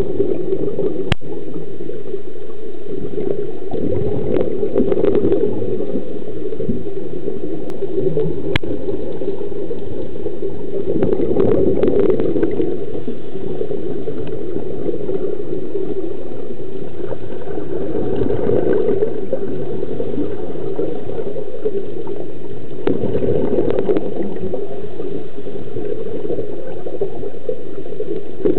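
Underwater water noise, a steady low rush that swells every six or seven seconds.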